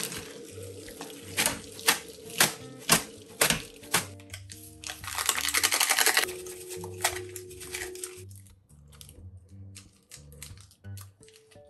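Boiled noodles drained into a metal strainer in a stainless steel sink, with water splashing at first and then a run of about seven sharp knocks as the strainer is shaken against the sink. Later comes a burst of rustling and light crinkling as foil seasoning sachets are torn and squeezed into bowls. Soft background music plays throughout.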